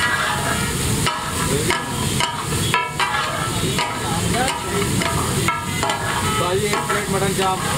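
Metal spatulas striking and scraping on a large steel tawa griddle, ringing with each irregular stroke about twice a second, over the sizzle of mutton chops frying in masala.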